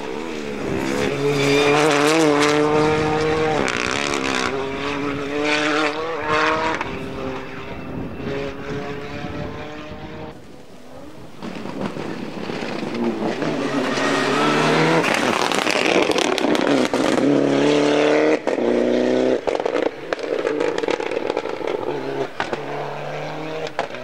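Rally cars driven hard past the spectator, engine note climbing and dropping with gear changes. One car passes and fades away, then a second comes up loud and runs through a series of quick shifts near the end.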